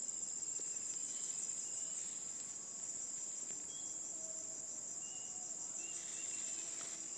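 Steady, high-pitched trilling of insects, with a few faint, short whistled notes in the middle.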